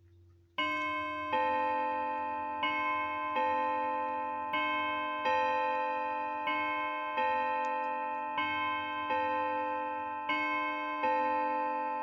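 Waterbury Bim Bam clock chime rods struck in turn, two notes alternating bim-bam about six times. Each strike rings on and slowly fades under the next. The strikes begin about half a second in.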